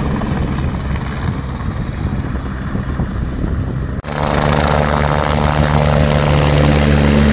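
Helicopter rotor and engine noise: at first farther off, then about four seconds in suddenly much louder and close, with a steady low hum from the rotor as the helicopter hovers just above the helipad.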